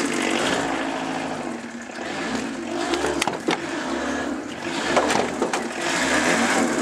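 Diesel engine running unevenly ('loping') just after a cold start on ether, with a few sharp knocks about three and five seconds in.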